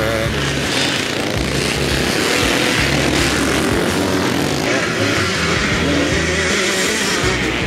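Vintage motocross bike engines revving and running at race pace, their pitch rising and falling, mixed with background music.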